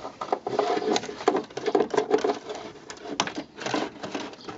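A flexible plastic strip and a cable being pushed through a rubber wiring boot, making irregular scraping, rubbing and clicking.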